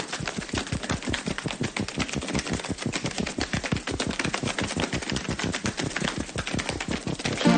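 Rapid, even run of sharp clicks, roughly ten a second, with no tune or voice.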